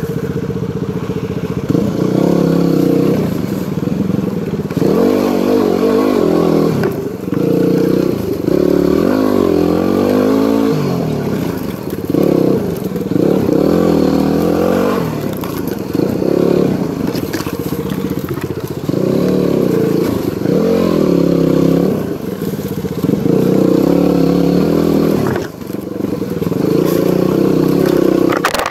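Yamaha WR250R single-cylinder four-stroke dual-sport motorcycle engine being ridden off-road, revving up and easing off again and again as the throttle is worked.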